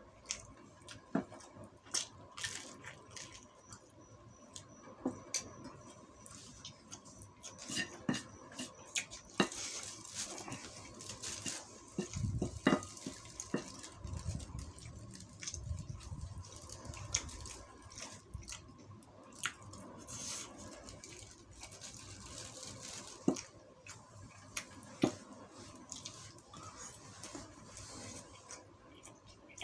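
Metal spoon and fork clinking and scraping on a plate, with chewing and paper rustling, in scattered irregular clicks over a faint steady hum.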